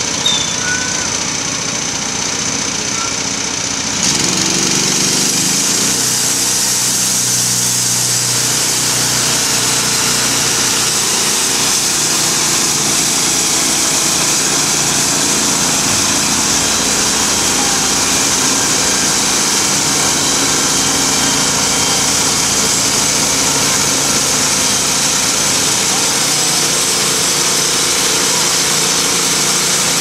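Logmaster LM1 bandsaw mill's small gas engine running, stepping up about four seconds in as it comes up to cutting speed. It then runs steadily under load while the band blade saws along the log.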